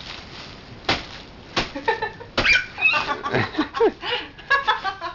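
Bubble wrap popping twice, sharp and sudden, followed by more crinkling and clicks mixed with short, squeaky vocal noises.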